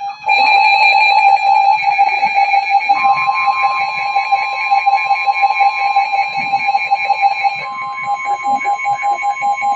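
Emergency Alert System alarm tones: loud, steady electronic tones with a rapid pulsing pattern, a second higher tone joining about three seconds in. They are the alert signal announcing the next warning, a severe thunderstorm warning.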